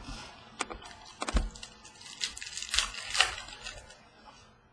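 Basketball trading cards being handled on a wooden tabletop: a few sharp taps as cards are set down, then a burst of rustling and flicking about two to three seconds in.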